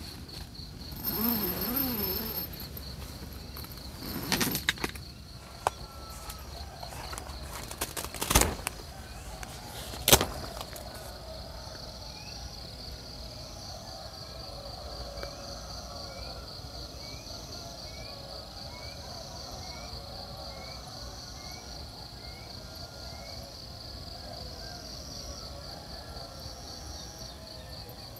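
Night insects trilling in a steady high chorus, with short chirps repeating about once a second through the second half. A few sharp knocks and a brief louder sound come in the first ten seconds.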